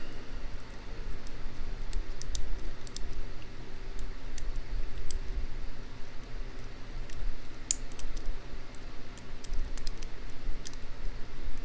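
Lock pick and tension wrench working the pins of a Taylor mortise cylinder lock as it is picked, giving light, irregular metallic clicks and scrapes over a steady low hum.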